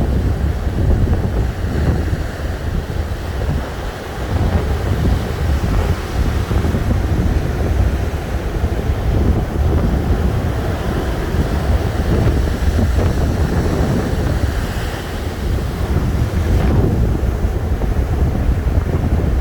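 Ocean surf washing continuously onto the shore, with wind rumbling on the microphone.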